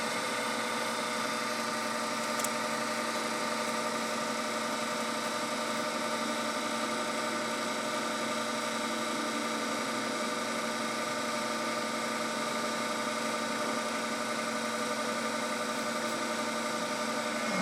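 Binns & Berry Data 90 CNC lathe running steadily under power, a constant machine hum with several steady tones.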